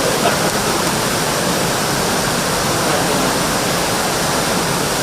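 Loud, steady rushing noise with no pitch and no distinct events.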